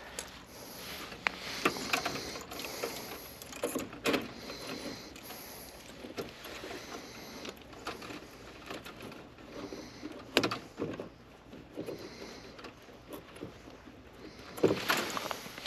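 Hand work with needle-nose pliers on wiring inside a sheet-metal air handler: rustling and scattered small clicks, with a few sharper knocks.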